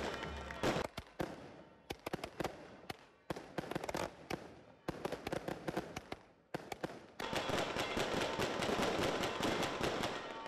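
Fireworks going off: a string of sharp bangs at uneven intervals, turning about seven seconds in into a rapid, continuous crackle of many small bangs.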